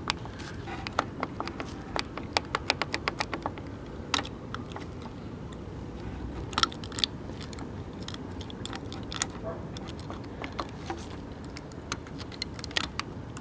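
Irregular small clicks and taps from the plastic and metal parts of a vintage portable tube TV being handled, with a quick run of clicks about two seconds in, over a low steady hum.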